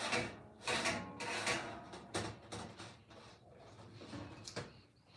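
Plates and a round loaf of bread handled and set down on a kitchen counter: a few short knocks and rustles.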